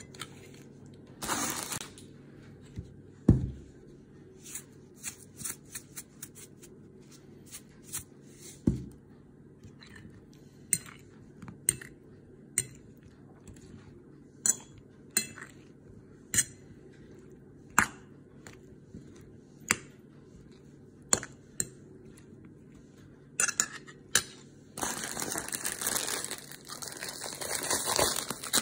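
Metal fork clinking and tapping against a ceramic plate as it picks through a cucumber and red pepper salad: sharp single clicks a second or two apart, with a couple of duller knocks. From about three-quarters through, a continuous crunchy rustling takes over.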